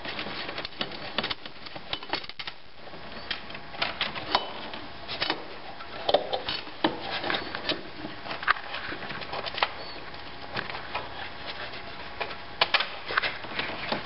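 Irregular light clicks, taps and knocks of hands working hoses, fittings and a brace loose in a car's front compartment, small metal and plastic parts rattling against each other.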